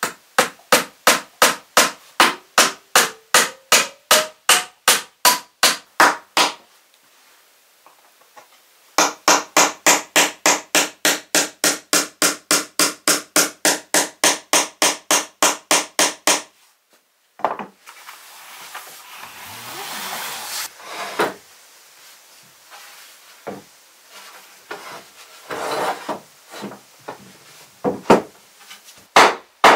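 Hammer driving nails into wooden floorboards, steady strikes about three a second in two long runs. After that comes a scraping rub and scattered wooden knocks, and the hammering starts again near the end.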